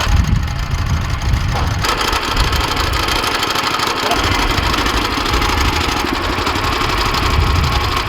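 Woodland Mills HM122 band sawmill's small gasoline engine running steadily, with the band blade cutting through a log; a brighter, hissing cutting sound comes in about two seconds in and carries on.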